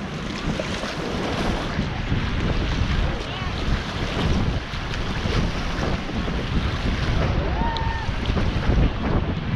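River water rushing and splashing around an inflatable raft being paddled forward, with heavy wind buffeting on the microphone.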